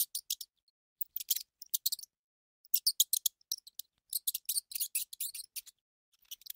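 Hamster sounds: quick, high clicks and crackles in four irregular clusters of about a second each, with short gaps between.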